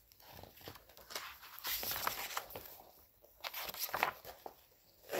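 Paper rustling and soft knocks as a picture book is opened and its pages are turned, in two stretches with a brief pause about three seconds in.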